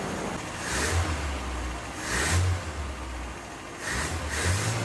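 Toyota 22R carbureted four-cylinder engine idling and revved by hand at the carburetor throttle: three short revs, about a second in, a little after two seconds and near the end, each dropping back to idle.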